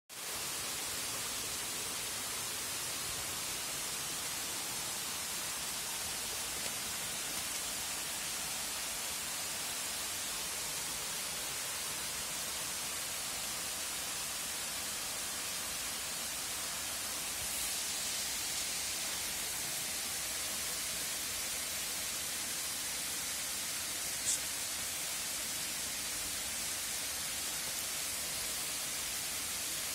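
Steady high hiss with no distinct events. A faint short tick comes about 24 seconds in.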